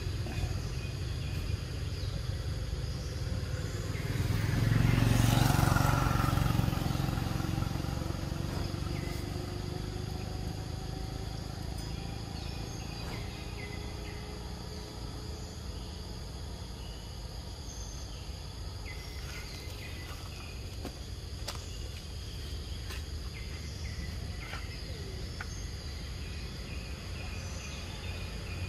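Outdoor ambience: a steady high insect drone over a low rumble, with a broad rush of noise that swells and fades about four to seven seconds in, and a few faint clicks later on.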